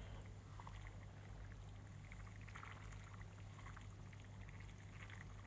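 Bean stew simmering in a pot on the heat, with faint irregular bubbling and popping over a low steady hum.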